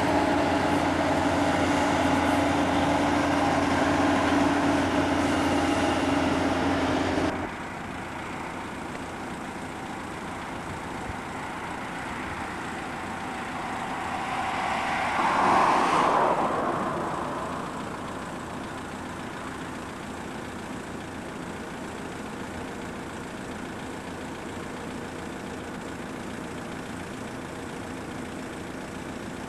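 Heavy construction machinery at a concrete batching plant running steadily, cutting off abruptly about seven seconds in. After that comes a quieter steady background hum of distant traffic, with one vehicle passing that swells and fades about halfway through.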